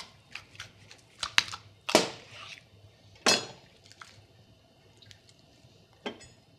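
A knife cutting alongside the backbone of a raw bird, with a series of sharp cracks and crunches as it goes through bone. The three loudest come at about one and a half, two and three and a half seconds in, with fainter ticks between and after.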